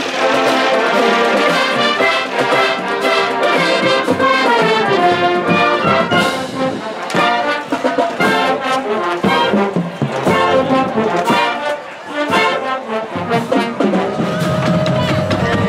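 Brass band music: trombones and trumpets playing a lively tune over steady drum hits.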